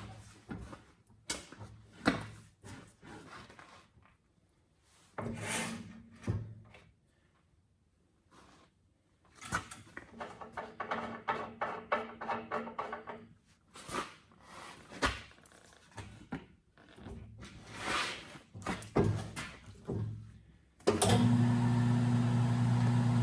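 Knocks and rubbing of a truck tire being handled and worked onto its rim on a tire changer, with a brief hum about ten seconds in; near the end the tire changer's motor starts and runs steadily.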